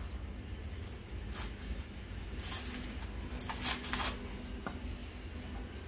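A small packet from a brake caliper rebuild kit rustling and crinkling in gloved hands as it is handled and opened, in a few short bursts, over a low steady hum.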